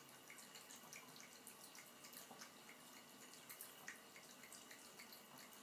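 Faint trickle of a thin stream of water from a bathtub faucet, with small irregular drip-like ticks and splashes as a cat laps at the stream.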